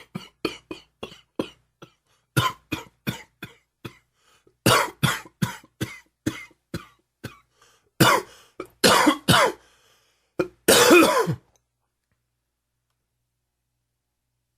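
A man's hacking smoker's cough: several runs of quick, short coughs, the last few near the end louder and longer. The uploader puts the cough down to heavy smoking and humid weather.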